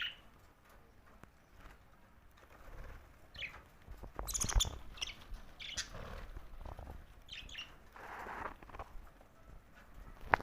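Pet budgerigars chirping in short, scattered calls, with small clicks and a sharp tap near the end.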